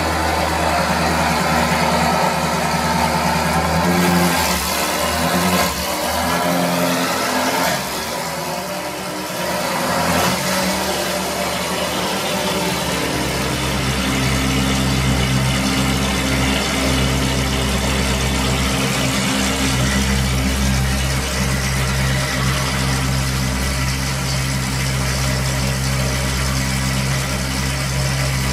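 Ferrari F430 Spider's 4.3-litre V8 running, its pitch rising and falling under throttle, then settling about 13 seconds in to a steady low idle.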